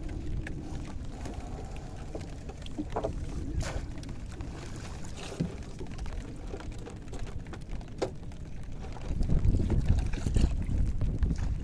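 Wind rumbling on the microphone, growing louder about nine seconds in, with scattered drips, splashes and small knocks as a wet cast net is hauled aboard a small wooden boat.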